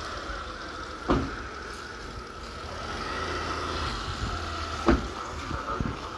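Engine idling with a steady low rumble, broken by two sharp thumps, one about a second in and a louder one just before five seconds.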